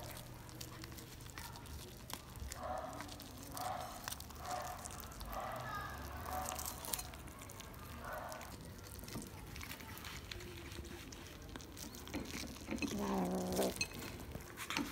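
Black kitten making short growling cries while it chews at corn on the cob, a string of them about once a second, then a longer, louder cry near the end.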